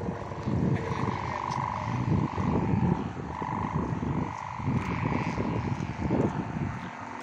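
Gusty wind rumbling on the microphone in uneven gusts, over a steady droning hum that swells and fades every second or so.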